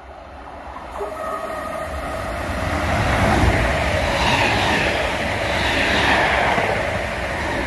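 Royal Mail Class 325 electric multiple unit passing through at speed. The running noise of wheels on rail and rushing air builds over the first three seconds as the train approaches, then stays loud and steady as the carriages go by.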